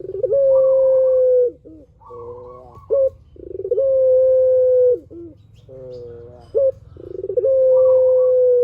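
A puter (domestic Barbary dove) cooing its long call three times, about every three and a half seconds. Each phrase is a short note, a long held coo at a steady pitch, and a lower rolling end.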